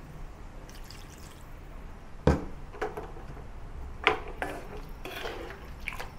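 Wooden spatula stirring lamb pieces through a thin, watery curry in a non-stick wok: wet liquid sounds with several knocks and scrapes against the pan, the loudest about two seconds in.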